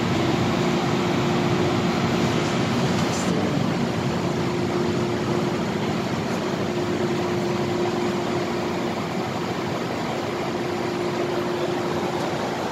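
Steady hum of a stationary MTR M-Train, mostly its air-conditioning and auxiliary equipment running, with a faint steady low tone.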